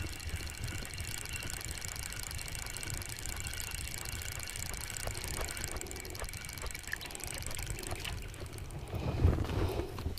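Calm river ambience: a steady high chorus of distant birds over a low rumble, with a few louder soft splashing and handling noises near the end.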